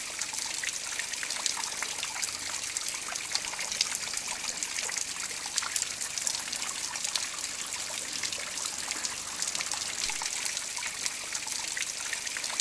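Water trickling from a copper water feature, running off its copper leaves in thin streams and splashing onto pebbles below. It is a steady trickle full of small droplet splashes.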